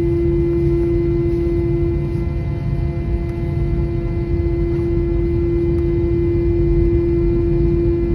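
Cabin noise of an Airbus A321-231 taxiing, its IAE V2500 engines at idle: a steady hum with one strong low tone and fainter higher tones over a low rumble.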